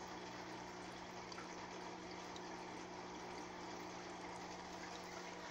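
Aquarium filter running: a steady rush of moving water with a low, even hum underneath.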